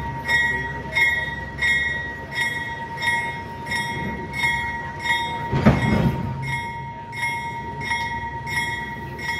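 Locomotive bell ringing steadily, about three strokes every two seconds, over the low rumble of the slowly moving train, with one louder thump about six seconds in.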